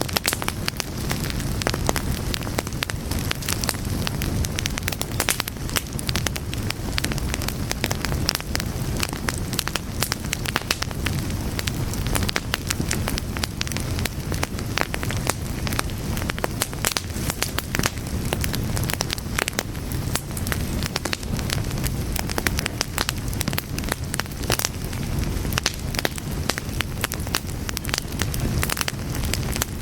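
Fire burning, with frequent irregular crackles and pops over a steady low rumble.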